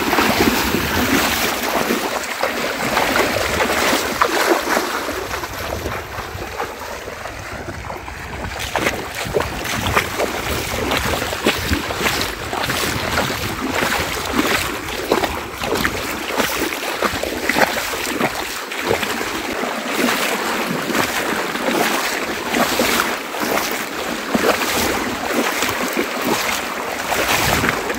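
Legs wading through deep, flowing floodwater: constant sloshing with a quick run of splashes as each stride pushes through the water.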